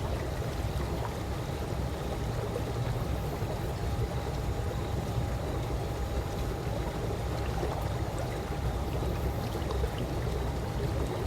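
Calm swimming pool water: a steady, unbroken wash of water noise with a strong low rumble and a faint steady hum.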